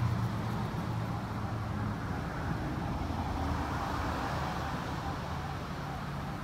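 Steady low rumble and hum of background noise, with no clear start, stop or change.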